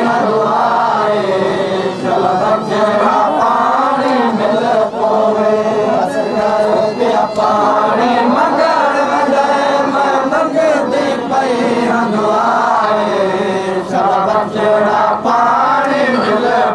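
A crowd of men chanting a noha, a Shia mourning chant, together in unison.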